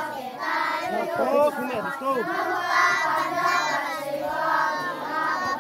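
A large group of children singing a chant together in unison.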